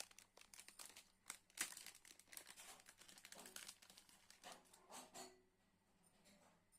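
Faint crinkling and rustling of packaging being handled, in scattered soft crackles and ticks, the loudest about a second and a half in, dying away a little after five seconds.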